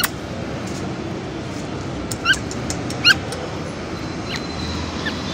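Puppies giving short, high-pitched yelps and whines that rise in pitch, the two loudest about two and three seconds in, over steady background noise.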